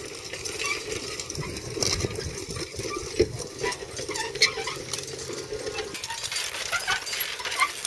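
Mule team in harness pulling a disc harrow over tilled ground: trace chains and harness hardware jingling and clinking irregularly over a steady rustle of the rig moving through the soil.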